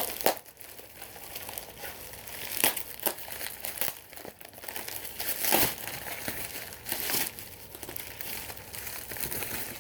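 Packaging crinkling and rustling as it is unwrapped by hand, in irregular crackles, with louder rustles about two and a half and five and a half seconds in.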